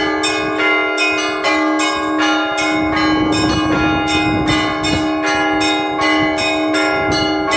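Orthodox-style church bell ringing (zvon) played by hand. The small bells are struck in a quick, even rhythm of about three strokes a second, over the steady hum of a larger bell.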